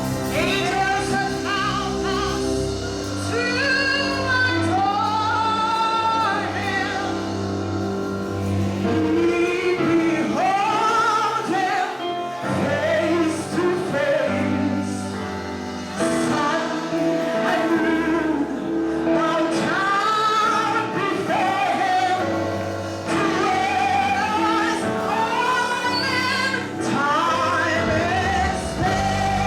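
Live gospel singing with instrumental accompaniment: sung melody lines, with other voices joining, over held chords and a bass line.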